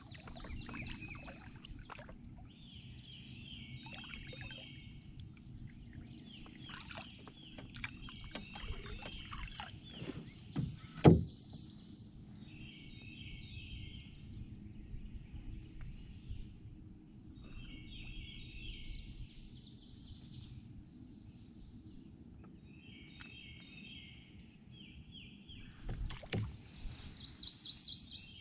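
Songbirds singing, one repeating a short phrase of quick notes every few seconds, over a steady high tone and a low steady rumble. A single loud knock about eleven seconds in, and a few softer knocks near the end.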